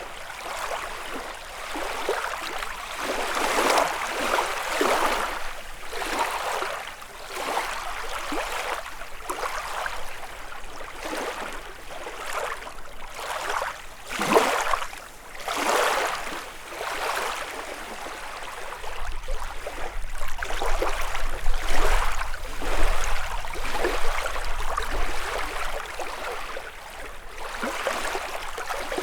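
Small waves lapping and splashing on a lakeshore in quick, irregular washes, one every second or so. A low rumble comes in about two-thirds of the way through.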